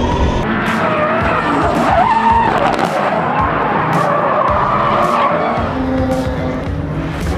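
Drift cars sliding sideways, their tyres squealing in a wavering pitch over the steady sound of their engines.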